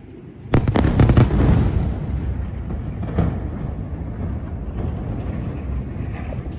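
Airstrike bomb explosion: a sudden heavy blast about half a second in, a cluster of sharp cracks over the next second, then a long low rumble that slowly dies away. A smaller bang follows about three seconds in.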